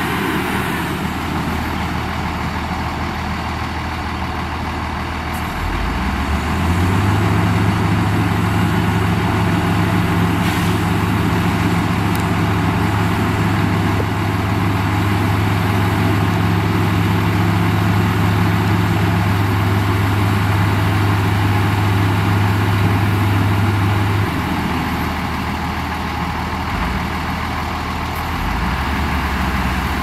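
Shantui DH17C2 bulldozer's diesel engine running. About six seconds in the engine gets louder with a strong low steady hum, holds there, then eases back down near 24 seconds.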